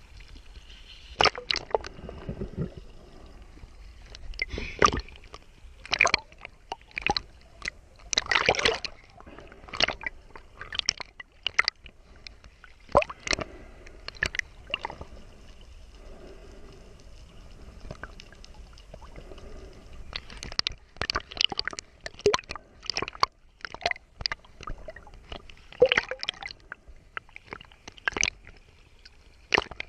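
Sea water sloshing and slapping against a bobbing camera at the surface, the camera dipping in and out of the water: irregular splashes, with a quieter stretch in the middle.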